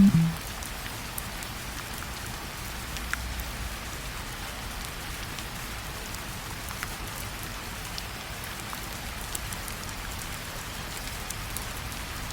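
Steady rain falling on a surface, an even hiss with scattered faint drop ticks.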